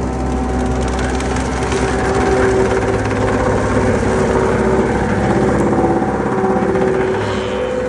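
Skid steer running steadily while powering a Turbo Mulcher TM60 hydraulic mulching head, a steady engine and machine drone that eases off near the end.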